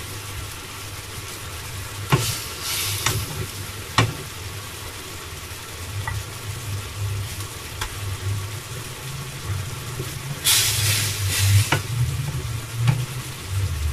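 Monkfish pieces being set with metal tongs into a pan of simmering cherry-tomato and fish-stock sauce: a steady sizzle over a low hum, with the tongs clicking against the pan a few times. A louder burst of sizzling comes about ten and a half seconds in as more fish goes into the sauce.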